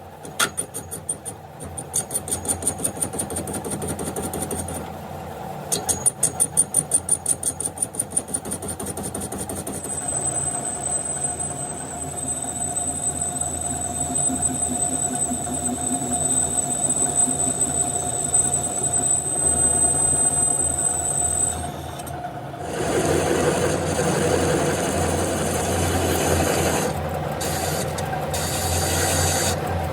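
Metalworking on a crankshaft. First comes a run of quick rhythmic strokes, about five a second. About ten seconds in, a machine takes over with a steady high whine over a lower hum. Near twenty-two seconds that stops, and a rougher, noisier grinding-like sound follows.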